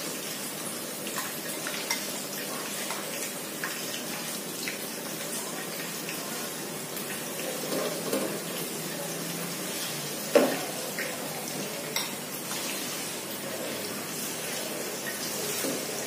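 Tilapia frying in hot oil in a pan, a steady sizzle, with a metal spoon clinking against a bowl and the pan now and then; the loudest clink comes about ten seconds in.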